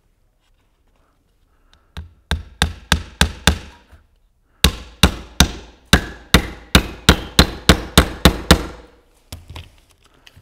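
A hammer driving nails into the cedar frame of a beehive floor: a run of about six blows, a short pause, then about a dozen more at roughly three a second, each with a short ring, ending in a couple of lighter taps.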